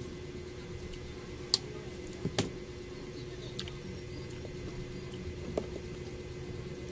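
Pomelo pulp being pulled apart by hand: soft squishing and tearing of the juicy segments, with a few sharp clicks, two of them close together about two seconds in, over a steady low hum.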